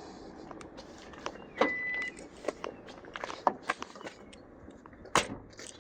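2013 Lexus ES350's door locks and trunk release working in response to a newly programmed proximity remote: a series of clicks and knocks, with a short high beep about a second and a half in and the loudest knock about five seconds in.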